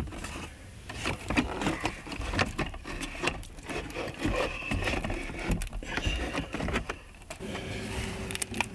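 Irregular plastic knocks, clicks and scrapes of a car's NAV display unit being handled and worked into its opening in the dashboard. The unit is awkward to position because of the wires connected to its back.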